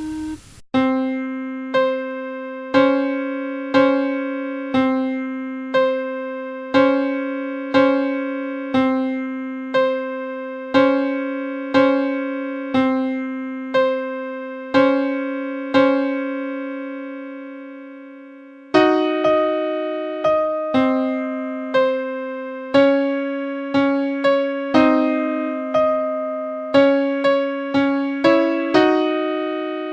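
Electric piano music: a slow melody of single notes and pairs of notes, each struck and fading, about one a second. One long note is held for a few seconds, then the notes come quicker and in chords from about 19 seconds on.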